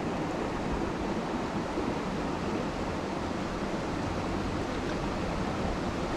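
River current rushing steadily, an even, unbroken water noise.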